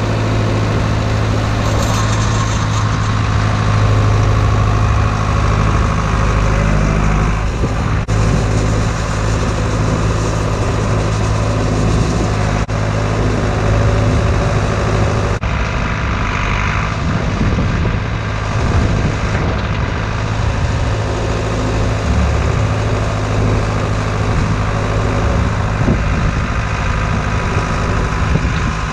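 Tractor engine running steadily, a constant low hum with a few abrupt breaks where the sound cuts.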